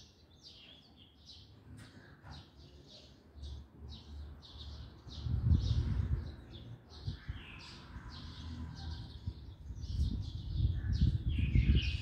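Small birds chirping over and over in short, quick calls, with a low rumbling noise that comes in about five seconds in and is loudest near the end.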